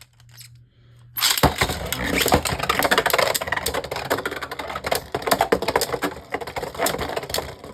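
Two Beyblade Burst spinning tops launched into a plastic stadium, clashing and scraping with rapid clicks and knocks. Starts about a second in and dies away near the end.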